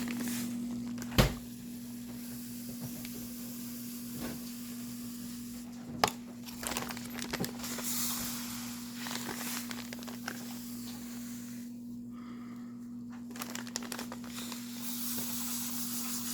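Crinkling and rustling of a plastic bag of doll-weighting beads being handled and filled, with two sharp knocks, one about a second in and one about six seconds in.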